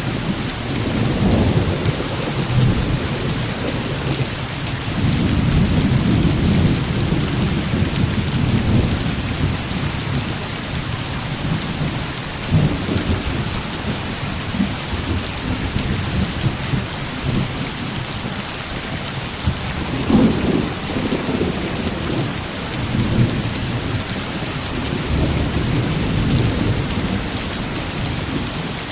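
Heavy rain falling in a steady hiss, with thunder rumbling low underneath in repeated swells, one sharper crack of thunder about twenty seconds in.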